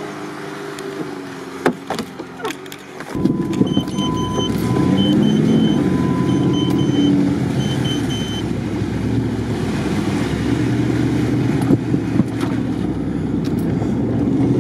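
Jeep Grand Cherokee heard from inside its cabin, engine running quietly at first, with a few knocks about two seconds in. About three seconds in it gets louder as the jeep moves off through mud. A warning chime beeps in short runs for several seconds soon after.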